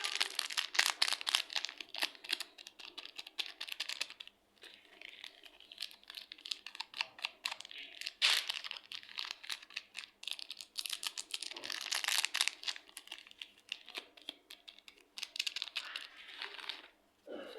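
Clear slime mixed with soft clay being squished and stretched by hand, making dense sticky crackles and clicks that come in waves, with louder bursts about 8 and 12 seconds in.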